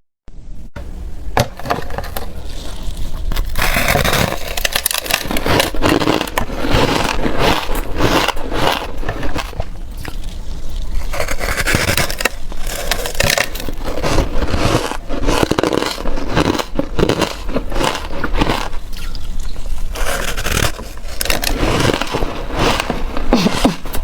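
Close-miked crunching and scraping of powdery reshaped ice being bitten and chewed, with many small crackles.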